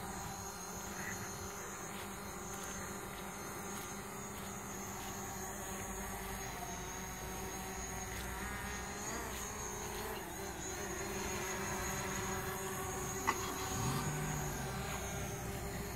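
DJI Mavic Pro quadcopter's propellers buzzing steadily, a high whine of several steady tones held throughout, with a faint click about 13 seconds in.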